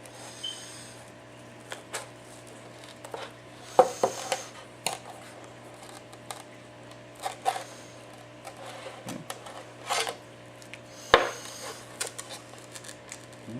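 Irregular clicks, taps and light scrapes of tools prying a broken glass digitizer off an iPad 4's frame, loudest about four and eleven seconds in, over a faint steady hum.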